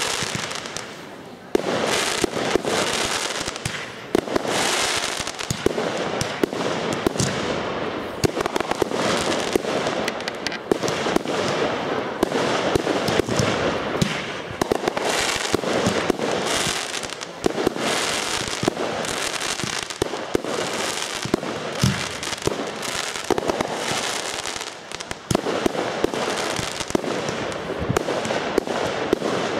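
Aerial fireworks going off in rapid succession: a near-continuous run of sharp launch and burst reports over a steady rush of noise, with hardly a pause.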